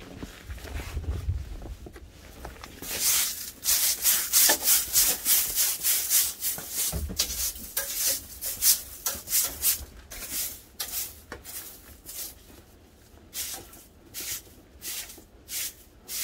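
Rhythmic scraping strokes, two to three a second, starting a few seconds in and becoming sparser near the end.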